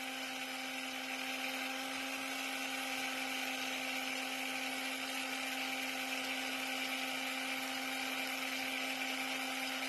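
Electric Biax-type power scraper running with a steady motor hum, its blade scraping the surface grinder's slideway.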